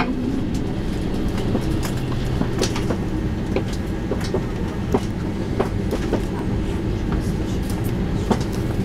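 Cabin noise of an Airbus A320-214 rolling slowly on the apron: a steady low rumble with scattered, irregular clicks and knocks from the airframe and cabin fittings.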